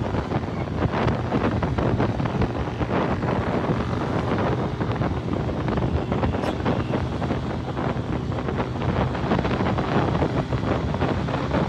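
Suzuki 150 motorcycle's single-cylinder four-stroke engine running steadily while riding, with wind buffeting the microphone.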